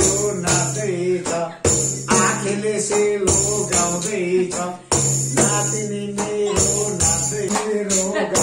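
Damphu, a pegged Tamang frame drum, beaten in a steady rhythm of about two strokes a second, with a man singing along.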